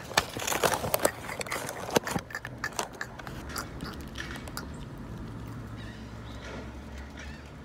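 Irregular clicks and crinkles of takeout food packaging being handled, busiest in the first three seconds, over a steady low hum inside the car.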